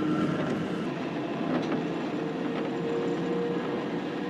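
Tram running along its rails: a steady rumble with a faint steady whine that comes in about halfway, and a couple of faint clicks from the wheels.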